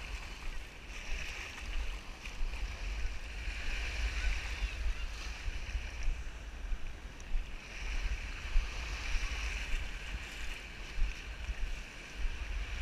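Small waves washing on a sandy shore, swelling and fading every few seconds, over a steady low rumble of wind on the microphone.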